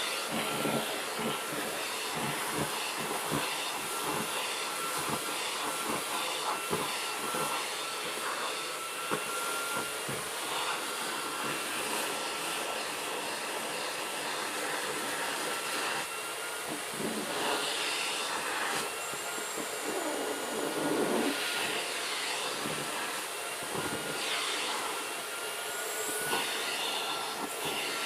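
Vacuum cleaner running with a steady high whine as its nozzle is drawn through a long-haired cat's coat to pull out loose fur, with soft irregular rubbing and bumping from the nozzle.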